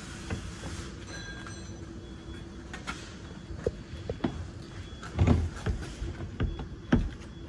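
A plastic underbody panel being handled and pushed into place against a metal bracket: rustling and scraping, then a few sharp knocks and thuds from about five seconds in, over a steady low hum.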